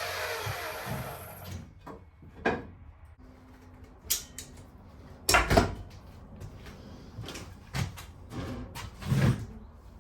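A jigsaw's motor winding down after a cut, its whine falling in pitch and dying away in the first second and a half. Then a string of irregular knocks and bumps, the loudest about five and a half seconds in.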